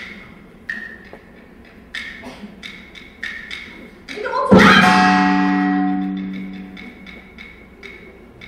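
Sichuan opera percussion: a run of short, sharp wooden strokes, then about halfway through one loud gong stroke that rings on for a couple of seconds, followed by more sharp strokes.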